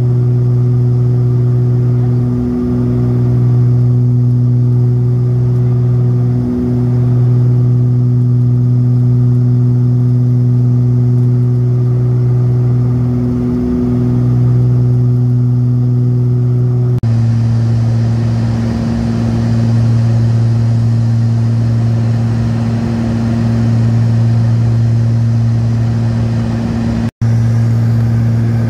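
Steady drone of a Cessna 402C's twin turbocharged six-cylinder piston engines and propellers in cruise-climb, heard inside the cabin, swelling and fading gently every few seconds. About two-thirds through, the drone shifts abruptly to a slightly lower, rougher tone and then cuts out for an instant near the end.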